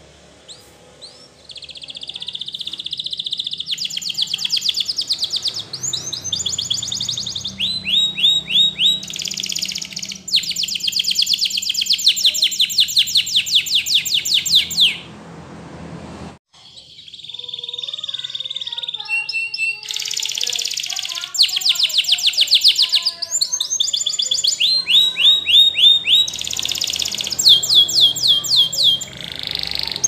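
Canary singing two long song phrases of fast trills and rolling repeated notes, broken by sharp downward-sliding whistles, with a short pause about halfway through.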